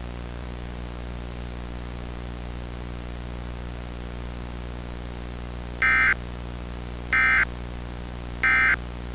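Steady electronic hum under a faint hiss, then, about six seconds in, three short identical bursts of screeching digital data tones a little over a second apart: the Emergency Alert System SAME end-of-message code (NNNN) that closes an alert broadcast.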